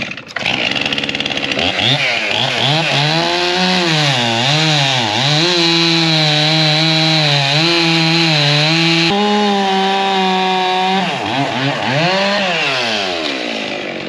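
Gas chainsaw cutting through a log, its engine note dipping and recovering as the chain bites under load, then holding a steady pitch through the cut. Near the end it revs up and falls away as the saw comes out and winds down. The chain is still cutting well.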